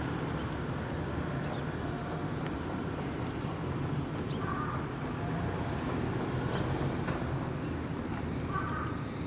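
Steady outdoor street ambience with a low rumble, and a few short faint chirps about halfway through and near the end.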